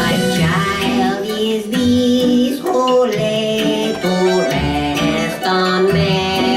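A song playing: a singing voice over instrumental backing with held notes.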